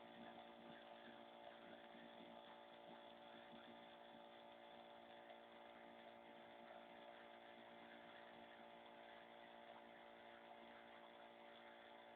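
Near silence with a faint, steady hum that holds one pitch throughout.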